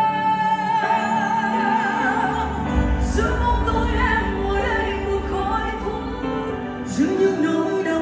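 Live band playing a slow Vietnamese pop ballad, heard from the audience: a passage without sung words, carried by held melody notes over the band, with a deep bass coming in about three seconds in.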